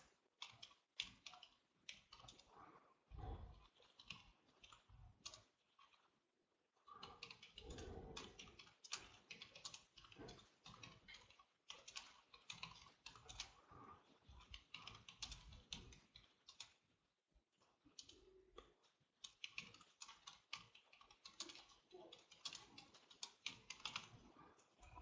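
Computer keyboard typing: fast runs of keystrokes broken by short pauses, faint, with a few dull low knocks among them.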